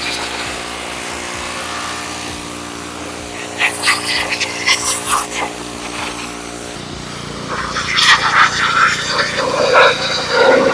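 Simpson 3200 psi gas pressure washer's engine running steadily, with the water jet spraying in bursts. About seven seconds in the engine's note changes, and the jet hisses and spatters hard against a surface from then on.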